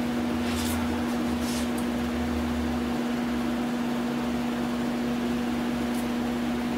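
Steady mechanical hum at one constant pitch, with a low rumble underneath. A few short, faint rasps of masking tape being pulled off the roll and pressed along a rubber window seal come near the start and again near the end.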